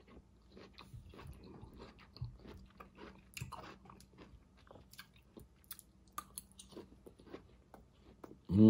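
Close-up chewing of soft sautéed zucchini, yellow squash and red onion: small wet mouth clicks and soft crunches. Near the end a short hummed note of the voice comes in loudly.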